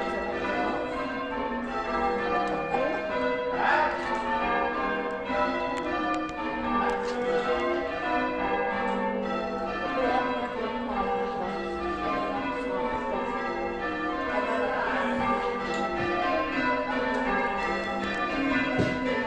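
Church bells ringing, many bells struck one after another so that their tones overlap and ring on.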